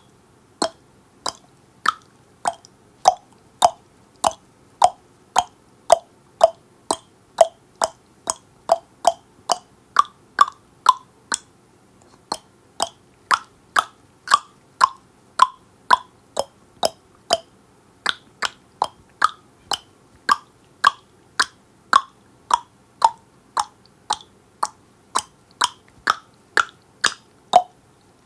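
Tongue clicking: a steady run of sharp mouth clicks, a little under two a second, the pitch of the clicks shifting lower and higher from one stretch to the next.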